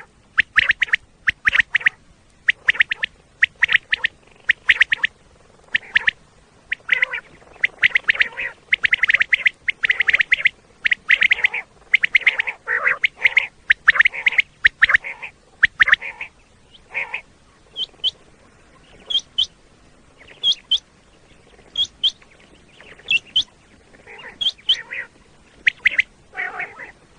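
Common quail calling: quick groups of short, sharp notes repeated over and over. In the second half, shorter, higher-pitched paired notes come in between the groups.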